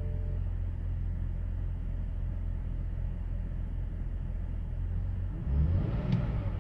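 2005 BMW 530i's inline-six engine idling with a steady low rumble. About five and a half seconds in it briefly surges louder, with a sharp click at the peak.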